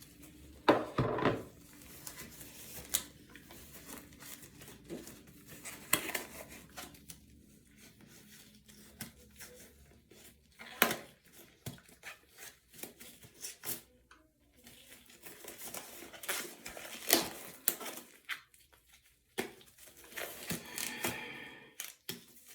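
Scattered knocks, clicks and crinkling rustles of toiletry items and their packaging being handled, with a longer rustle near the end.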